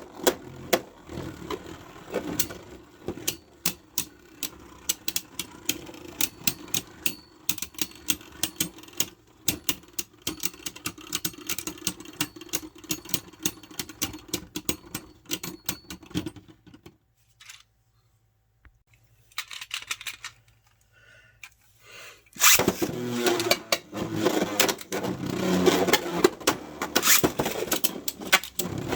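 Small hard plastic and metal Beyblade parts clicking and rattling in quick runs over a steady low hum. About seventeen seconds in it stops for a few seconds of near silence, then comes back louder and busier.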